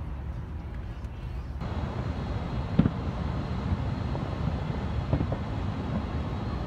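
Low, steady rumble of city ambience that grows louder about a second and a half in, with a few soft knocks, the sharpest nearly three seconds in.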